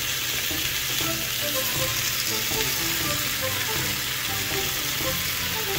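Raw burbot pieces and vegetables sizzling in hot oil in a frying pan: a steady frying hiss.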